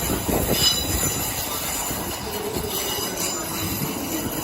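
Class 150 Sprinter diesel multiple unit moving through a station, a steady rolling rumble with brief high-pitched wheel squeals near the start and about three seconds in.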